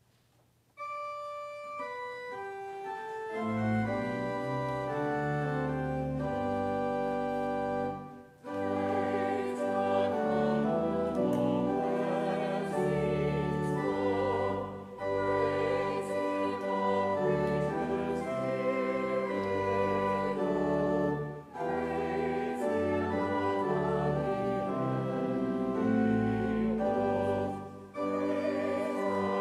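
Church organ playing a slow hymn in sustained chords, entering on a single note about a second in and filling out within a few seconds, with short breaks between lines, and the congregation singing along.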